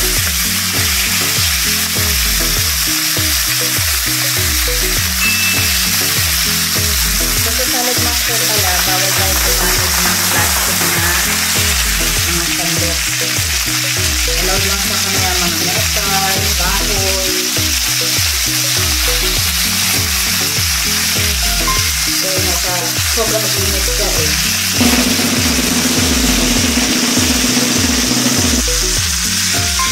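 Chicken thighs sizzling steadily in their own rendered fat in a stainless electric skillet, with background music and a steady beat underneath.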